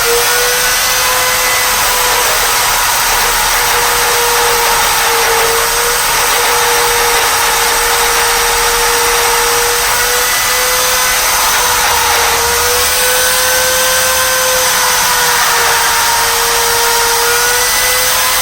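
Dremel-type high-speed rotary tool running continuously while cutting, a steady high whine that wavers slightly in pitch as it bears into the work.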